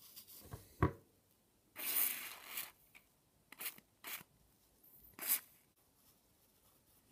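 Small handling noises of fingers working an ignition coil's spring and metal terminal cap: a sharp click about a second in, a longer scraping rustle near two seconds, then a few short clicks and rubs.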